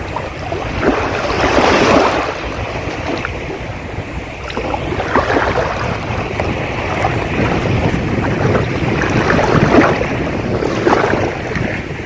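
Sea waves breaking and washing up on the beach, swelling and falling back several times, with wind rumbling on the microphone underneath.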